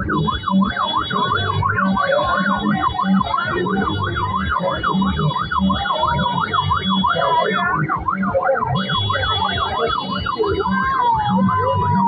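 An electronic siren on a rapid yelp, sweeping up and down about three times a second and sliding down near the end. Under it runs an even low drumbeat, about two beats a second, with crowd noise, and a high steady tone sounds on and off above it.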